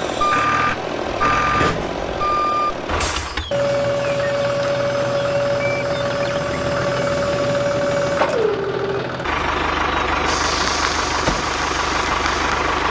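Vehicle reversing alarm beeping four times, then a click and a steady single-pitched whine that drops in pitch a little after halfway, followed by a steady engine-like running noise.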